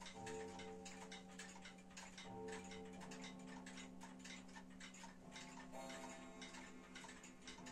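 Warmink Wuba Dutch wall clock's weight-driven pendulum movement ticking fast and evenly.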